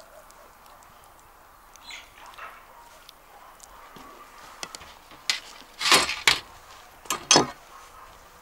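Metal cooking utensils clattering: a quiet start with faint ticks, then a cluster of sharp clinks and knocks past the middle.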